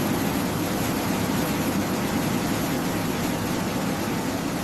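Aircraft jet engines running steadily: a constant noisy rumble with a thin, steady high tone above it.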